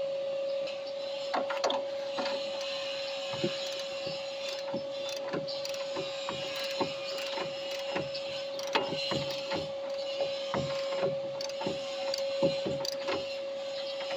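A ratcheting torque wrench being worked on suspension nuts and bolts: irregular sharp clicks and knocks, one to three a second, over a steady hum.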